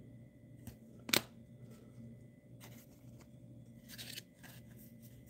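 Panini Donruss basketball trading cards handled and flipped by hand, with soft clicks and one sharper card snap a little over a second in, over a faint steady hum.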